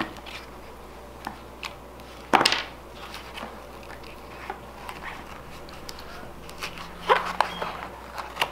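Handling noise from unboxing Klipsch R6 neckband earphones: light clicks, taps and rustles as the neckband and its cables are lifted and unwound from the foam-lined box. A louder knock comes about two and a half seconds in, and a few more clicks come near the end.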